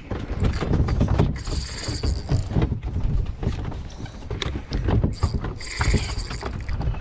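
Water slapping and splashing against a small fishing boat's hull, with scattered knocks and rattles.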